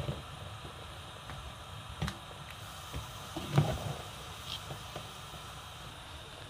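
Thick ogbono soup simmering in a pot, with a few irregular bubbles popping over a steady low background noise; the loudest pop comes about halfway through.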